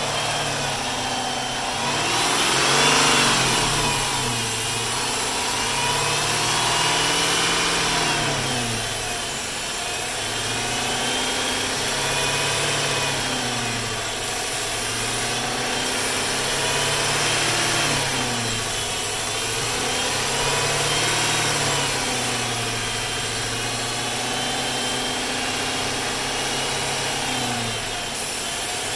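Hemi V8 engine idling with its speed rising and falling over and over, about every four seconds, a hunting idle. A brief hiss sounds about three seconds in.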